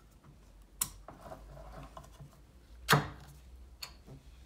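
Ring-pull metal lid of a tin can being pulled open by hand: a sharp click as the tab lifts, a scraping as the lid tears round the rim, then a loud sharp click about three seconds in and a smaller one just after.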